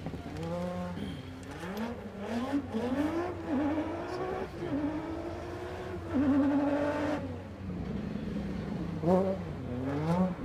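Mazda ice-racing car's engine revving hard on the ice track, its pitch climbing and dropping again and again as it accelerates and changes gear. For about a second past the middle it holds a high, steady pitch with a fast wobble, then it climbs again near the end.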